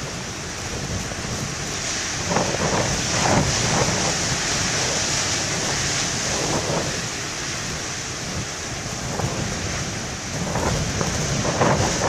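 Heavy surf breaking on a rocky shore, with strong wind buffeting the microphone: a continuous rushing and rumbling noise with a few louder surges, about two and a half and three seconds in and again near the end. The camcorder's plastic-wrap covering does not keep the wind noise out.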